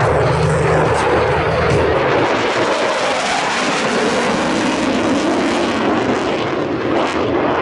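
Fighter jet flying past at an airshow: a loud, steady rushing jet noise.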